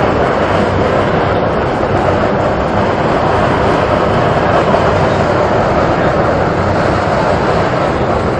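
Hot mud and water gushing from a mud-eruption vent, a loud, steady rushing sound that does not let up.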